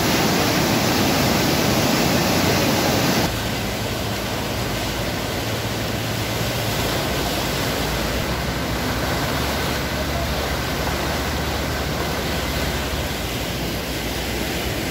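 Water released through an irrigation canal's sluice gates, rushing and churning in a steady noise. The noise drops a little about three seconds in.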